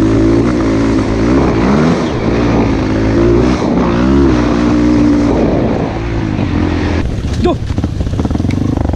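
Trail motorcycle engine running while riding a dirt track, its pitch rising and falling as the throttle opens and closes. About seven seconds in the engine eases off.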